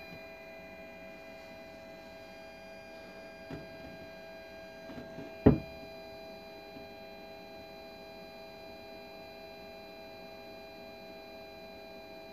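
Diesel furnace running with a steady hum made of several fixed tones. One sharp click comes about five and a half seconds in.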